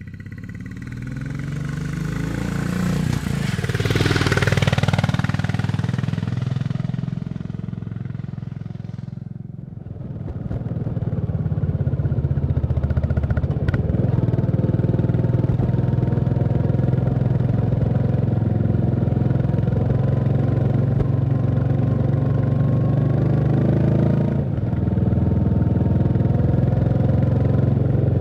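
Royal Enfield Classic 350's single-cylinder engine running: it swells to a peak about four seconds in and eases off, then runs steadily from about ten seconds on.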